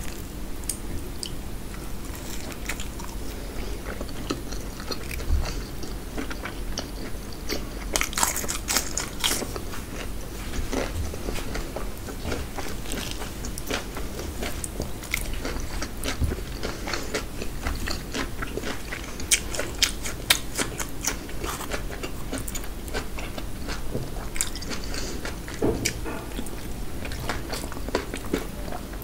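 Close-miked eating: a person biting and chewing puri and mutton curry, with many irregular sharp clicks and crackles of the mouth and food.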